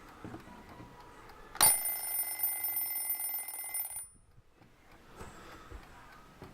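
Vintage mechanical hen (galinha) alarm clock setting off: its bell starts ringing suddenly about a second and a half in, a fast rattling ring that runs for about two and a half seconds, then cuts off abruptly.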